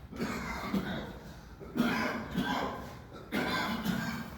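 A cough-like call repeated three times, about a second and a half apart, each one dying away over about a second.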